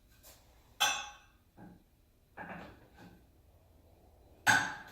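Metal parts and tools clinking and knocking as they are handled and set down: four short knocks with a brief ring, the loudest near the end.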